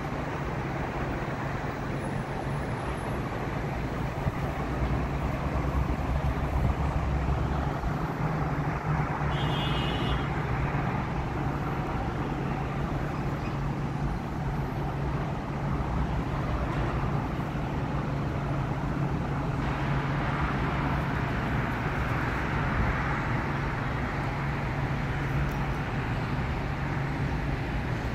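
Continuous road traffic noise from a jammed city street and expressway, with a steady low hum of engines, heard from high above. A brief high-pitched squeak sounds about ten seconds in.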